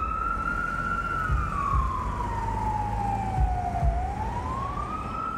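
Emergency vehicle siren in a slow wail: a single tone rises, holds, sinks slowly over about three seconds, then climbs again near the end.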